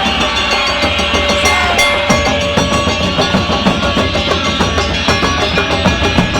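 Live Japanese taiko drums beating a fast, driving rhythm, with other instruments playing a sustained melody over them.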